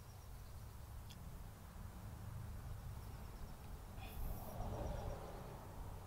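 Outdoor ambience: a steady low wind rumble on the microphone with faint high chirping, and a brief rustle about four seconds in.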